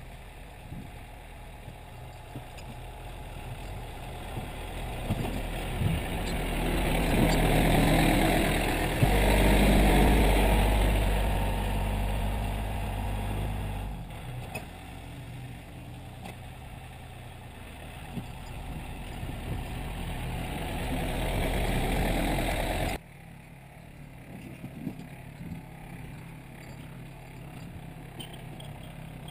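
John Deere 770 compact tractor's three-cylinder diesel engine running under load while plowing snow. It swells to its loudest in the middle, eases off, builds again, then drops sharply to a fainter engine sound about three-quarters of the way through.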